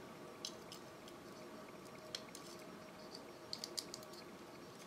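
Faint small clicks and taps of jumper wires and their plastic connectors being handled and pushed onto a circuit board's header pins, a quick cluster of four or so about three and a half seconds in, over a faint steady hum.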